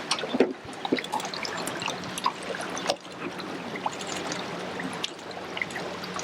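Water trickling and lapping, full of small irregular splashes and plinks, over a faint steady low hum.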